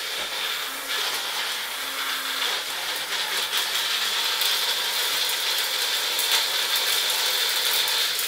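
Magic Bullet personal blender motor running at full speed, chopping garlic, spring onion, oil and vinegar into a jerk seasoning paste: a loud, steady high whine with fine clattering from the pieces.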